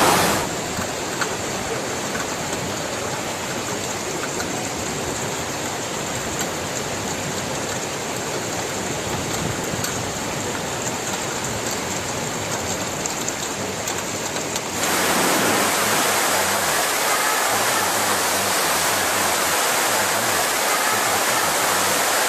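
Floodwater rushing: a steady, even noise of moving water. About 15 seconds in it turns abruptly louder and brighter as a different recording takes over.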